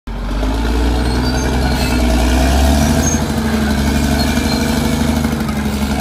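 Caterpillar D6R XL bulldozer's diesel engine running steadily and loudly, its note shifting slightly about halfway through.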